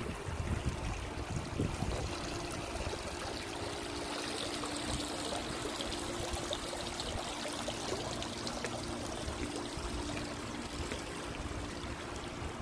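Pool water spilling over a tiled spillover wall into a lower pool: a steady rush and trickle of falling water, with a steady low hum beneath it.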